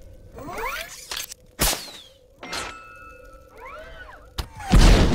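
Action-film sound effects for an armoured Iron Man suit: short rising-and-falling whirs twice, with a few sharp clicks between them, then a loud boom near the end.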